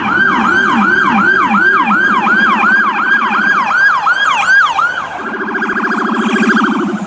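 Electronic siren (SA830 unit through 400 W speakers) sounding two tones at once, each sweeping sharply up and falling about three times a second. The lower tone switches to a rapid warble about two seconds in, and the higher one does the same about five seconds in.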